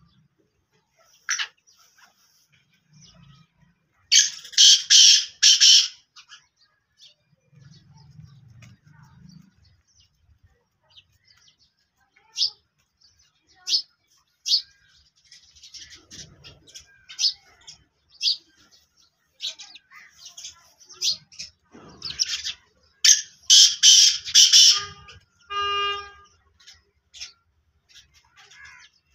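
Black francolin calling twice, about four seconds in and again near the end, each time a loud, harsh run of four or five grating notes lasting about a second and a half. Sparrows chirp in short notes between the calls.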